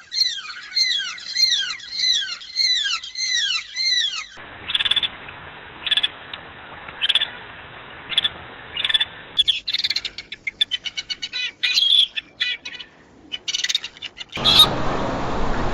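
Calls of several different birds, spliced abruptly one after another. First a run of repeated downward-sliding calls, about two a second. Then short single calls about once a second, then a rapid clicking chatter, and near the end one call over a louder background hiss.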